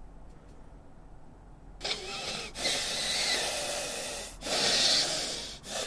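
Loud, noisy slurping of hot stew broth from a wooden spoon: three long slurps, starting about two seconds in.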